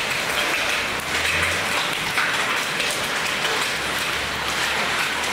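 Hail and heavy rain pelting paved ground: a steady, dense hiss of splashing water with many small hard ticks of hailstones striking the paving.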